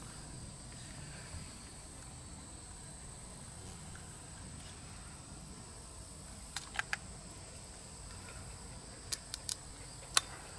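Steady high-pitched insect chorus, with a few short sharp clicks: a quick group of three past the middle, another three about two and a half seconds later, and one louder click near the end.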